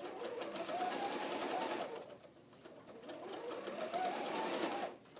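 Electric home sewing machine stitching a seam through layered fabric in two runs, with a short pause about two seconds in. Each run speeds up and then slows down again.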